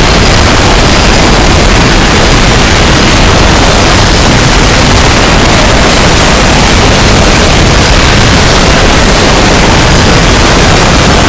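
A train crash sound effect boosted until it clips: a constant, extremely loud wall of harsh distorted noise, even from deep bass to hiss, with no separate impacts standing out.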